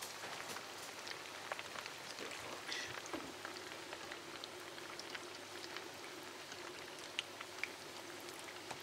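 Semolina pastries deep-frying in hot vegetable oil: a steady sizzle of bubbling oil, dotted with many small sharp crackles and pops.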